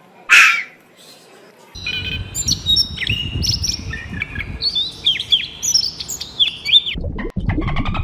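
A short sharp cry just after the start. Then a European robin singing, a fast run of high, thin whistled notes, from about two seconds in. Near the end, a bottlenose dolphin's clicks and gliding whistles take over.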